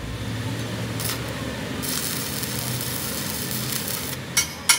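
Stick (arc) welding on a cracked steel truck front axle: the electrode arc crackles and hisses for about two seconds, then stops. Two sharp snaps follow near the end, over a steady low hum.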